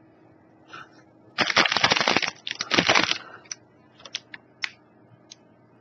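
Plastic snack wrappers crinkling in two loud bursts, followed by several light clicks and taps.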